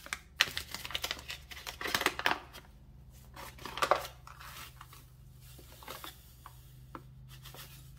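Caster sugar being measured out into a cup: a run of short rustling, scraping noises over the first four seconds, then a few light clicks.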